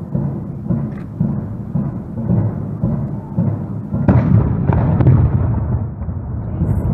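A reenactment muzzle-loading field cannon firing a blank charge about four seconds in, the loudest report. Under it runs a steady low rumble, with a couple of lighter reports, one about a second in and one just after the cannon.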